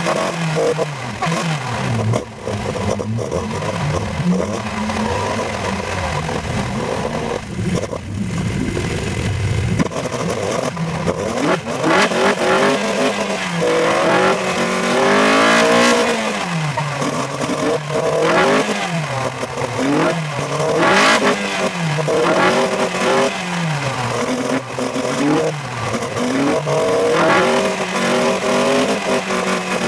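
Onboard sound of an open-cockpit race car's engine running under a buzz of wind and road noise. For roughly the first ten seconds the engine note holds fairly steady. After that it rises and falls again and again as the car accelerates and shifts gear.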